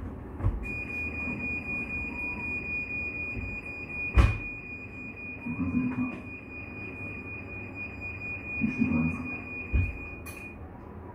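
A steady, high-pitched electronic beep held unbroken for about ten seconds and cutting off abruptly near the end, over a low rumble. A sharp knock about four seconds in is the loudest sound.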